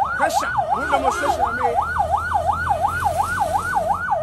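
Electronic siren in a fast yelp, its pitch sweeping up and down about four times a second without a break.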